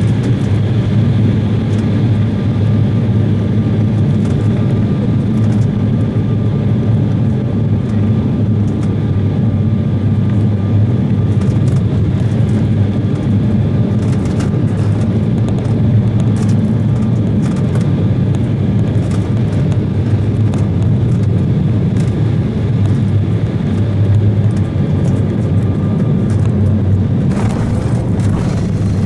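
Cabin noise inside an Embraer 170 regional jet in flight: a loud, steady low rumble of engines and airflow, with scattered light rattling clicks. This comes on a gusty, strong-wind approach.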